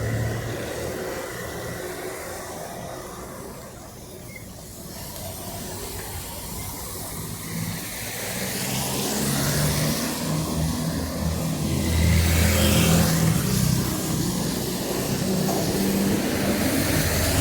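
Road traffic: car engines running as vehicles pass, the hum and hiss growing louder from about halfway through as one comes close.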